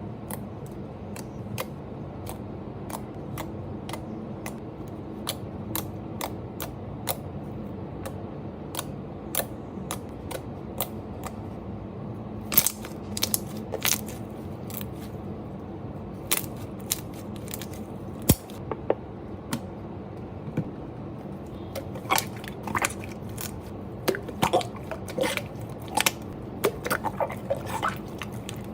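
Slime being played with by hand: an irregular run of small sharp clicks and pops, growing denser and more squelchy over the last several seconds, over a steady low hum.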